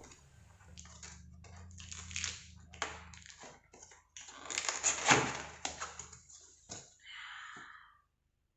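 Packaging being handled while an air fryer is unboxed: an irregular run of rustles, crinkles and knocks, loudest about five seconds in. The sound cuts off abruptly near the end.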